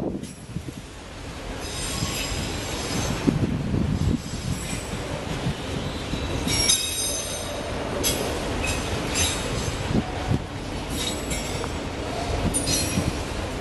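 Autorack freight cars rolling past with a steady low rumble, their steel wheels squealing in high, ringing tones several times.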